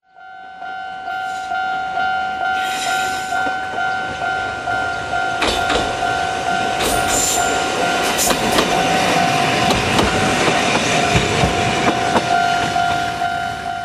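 Railway level-crossing warning bell ringing in a steady pulsing two-tone clang while an electric train rumbles through the crossing, its wheels clacking over the rail joints in the middle.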